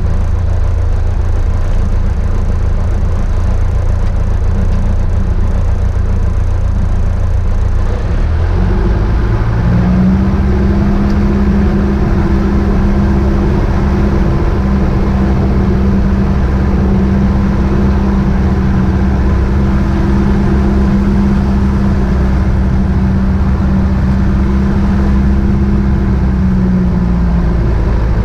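Small airplane's piston engine and propeller heard from inside the cockpit: idling, then brought up to a higher, steady rpm about eight seconds in, held there, and throttled back to idle near the end, as in a pre-takeoff run-up with the aircraft standing still.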